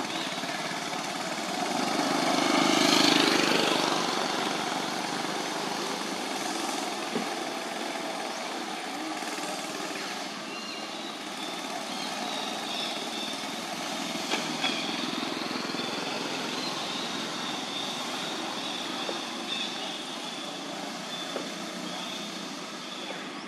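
A motor vehicle's engine passing over steady outdoor background noise, swelling to its loudest about three seconds in and then fading. A few faint clicks follow later.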